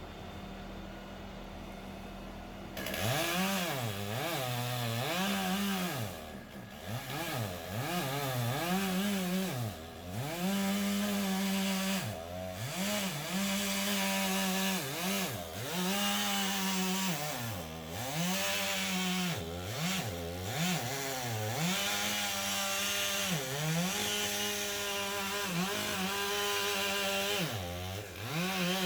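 Chainsaw cutting through a tree trunk. Its motor pitch repeatedly drops as the chain bites into the wood and rises again as it frees. The saw starts about three seconds in, after a steady low hum.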